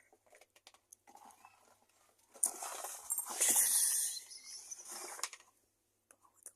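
Close-up eating sounds: scattered small clicks, then a louder noisy rustle lasting about three seconds, from about two seconds in.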